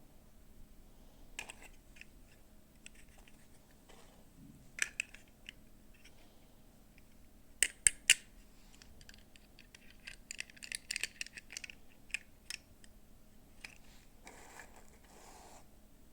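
Small clicks and taps from hands handling plastic toy pieces and packaging during an unboxing. There are three sharp clicks about eight seconds in, a run of light tapping a few seconds later, and a brief rustle near the end.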